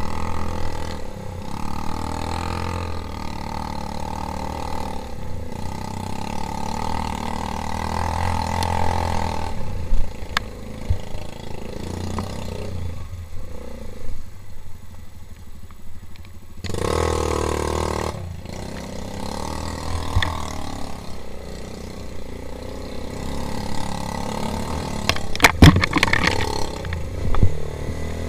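Four-stroke quad bike (ATV) engine running and revving, rising and falling, with sharp knocks and rattling near the end.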